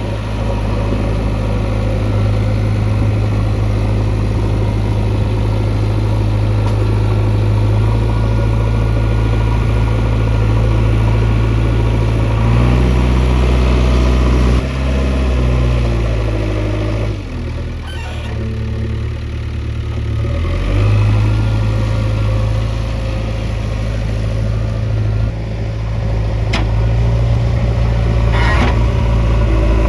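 JCB 3DX backhoe loader's diesel engine running steadily, its note shifting a little before halfway and dropping lower for a few seconds past the middle as the machine works. A sharp click sounds near the end.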